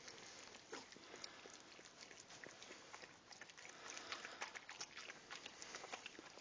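Dachshund mother licking a newborn puppy still in its birth sac: faint, irregular wet licks and tongue smacks.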